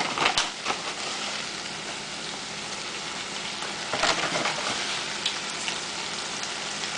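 Fried chicken pieces in sauce sizzling steadily in a hot pan, with a few clicks and scrapes of a utensil in the pan in the first second and again about four seconds in.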